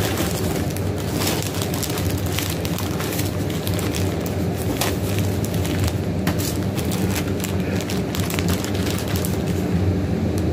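Packaging crinkling and rustling close to the microphone, with irregular handling clicks and knocks, over a steady low hum.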